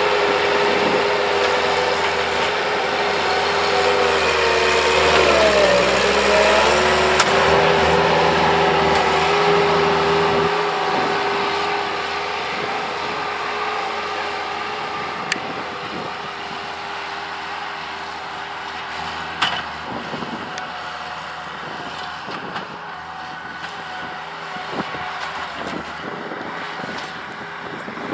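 Skid loader engine running, its pitch sagging briefly about a fifth of the way in as it takes load and then recovering, before it eases to a quieter run. A few sharp cracks stand out over the engine.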